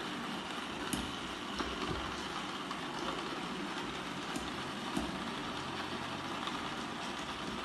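Robot vacuum cleaner running with a steady whir, with a few light knocks now and then.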